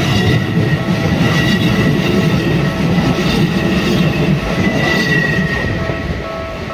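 Keikyu Main Line electric train running past at a level crossing: wheels and car bodies rumbling on the rails, with a high wheel squeal about five seconds in. The crossing's warning bell rings behind it, coming through more clearly as the train noise eases near the end.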